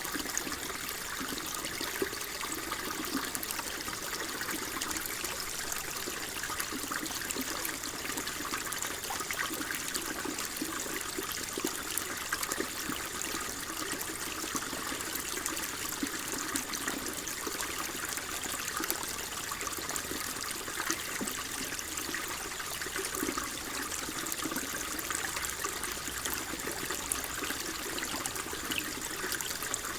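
Water flowing and trickling steadily, a stream-like burble with fine splashing.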